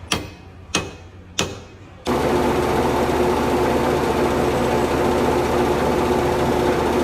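Three sharp knocks about two-thirds of a second apart, then a loud steady mechanical running noise that starts abruptly about two seconds in.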